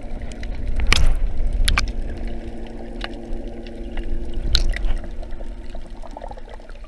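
Muffled underwater sound picked up by a GoPro being carried through the water: a low rumble with a steady low hum, and a few sharp clicks about a second in, near two seconds and again midway.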